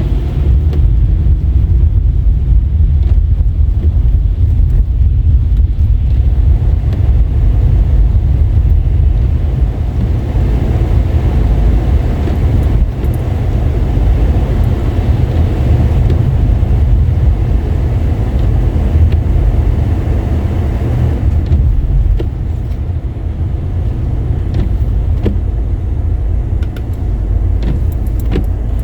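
Car driving on a wet road in mixed rain and snow, heard from inside the cabin: a steady low rumble of engine and tyre noise with a lighter hiss above it, which eases a little about three-quarters of the way through.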